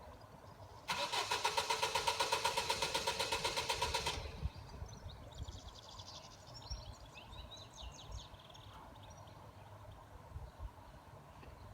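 A car's starter motor cranks the engine for about three seconds with a fast, even pulse, then stops abruptly. The engine does not catch: a car that won't start.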